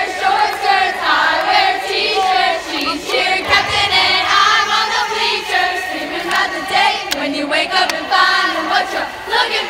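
A large crowd of girls' voices singing and chanting a cheer-camp song together, led by cheerleaders at the front.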